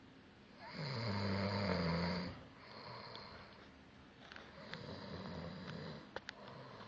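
A man snoring in his sleep: one loud snore with a low buzzing pitch about a second in, lasting about a second and a half, then quieter snoring breaths.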